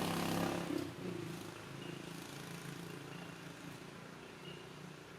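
A motor engine's steady hum fading away, dropping off about a second in and growing fainter throughout. A few faint short high chirps come through over it.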